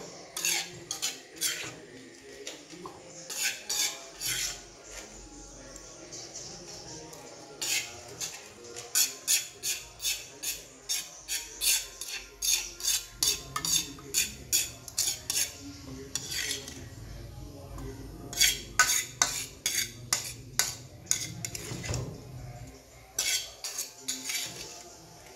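Metal ladle scraping and knocking against a metal wok while scooping rice out onto a plate. The knocks come in quick runs of several strokes, louder in the second half.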